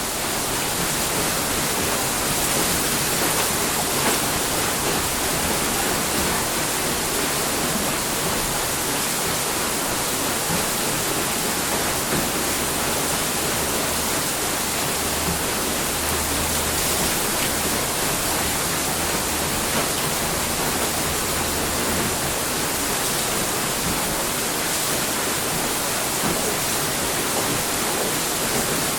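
Water rushing steadily at a water mill, with a faint low rumble underneath through the middle of the stretch.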